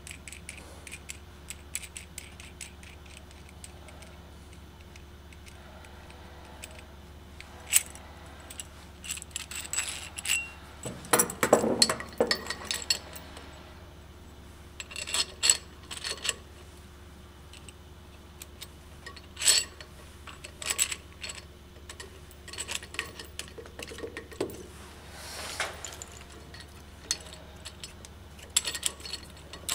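Intermittent metallic clinks, taps and rattles of steel threaded rods, nuts and a bearing splitter being handled and fitted around an electric motor's shaft, with a busier cluster of knocks about 11 to 13 seconds in.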